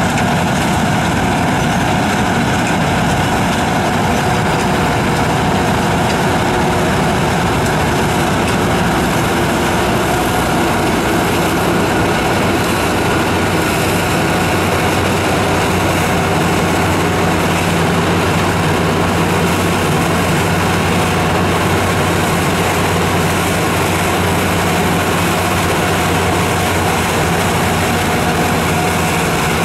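Rostselmash Don-1500 combine harvester running steadily while harvesting grain: its diesel engine under load together with the header and threshing machinery. A low steady drone becomes more even about halfway through.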